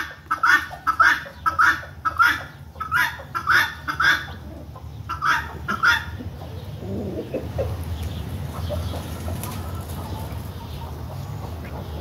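Guinea fowl calling, a run of short harsh calls about three a second that stops about six seconds in, leaving a low rumble of background noise.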